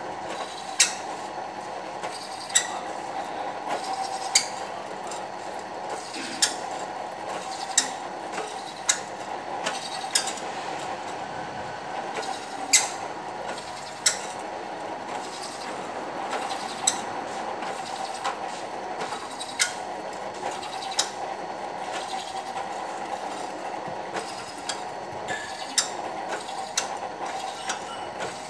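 Bench drill press running steadily while its bit bores holes through a cymbal, with sharp clicks every second or two.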